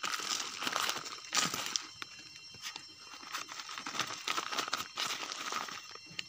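Dark plastic sheeting crinkling and crackling as it is handled and folded by hand, in irregular crackles that come and go.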